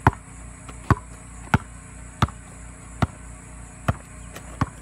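Basketball dribbled on a gravel path, seven steady bounces about one every three-quarters of a second.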